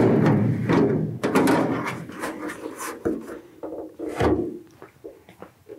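Aluminium leading-edge section of a Piper PA-28 wing being lifted off the wing spar by hand: sheet metal rubbing and knocking against the spar. A dense clatter in the first second or so gives way to scattered knocks and scrapes that die down near the end.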